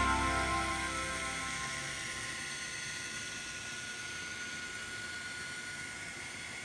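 Steady whir with a thin, unchanging high whine from the motors and gearing of N-scale model diesel locomotives as the train runs. Background music fades out in the first second or so.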